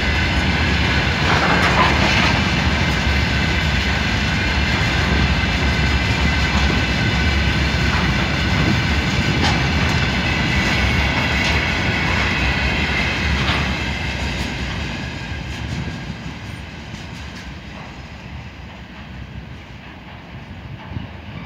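Loaded wagons of a heavy iron ore pellet freight train rolling past: a steady rumble and clatter of wheels on rail, with a high steady whine over it. It fades away from about fifteen seconds in as the last wagon passes and the train recedes.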